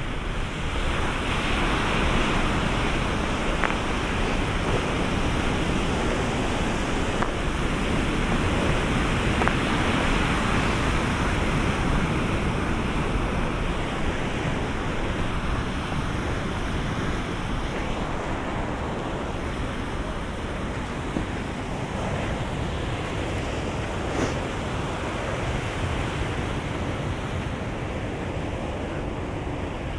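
Ocean surf breaking and washing up the shore, a continuous rush of water that swells in the first few seconds and eases a little after that, with wind buffeting the microphone.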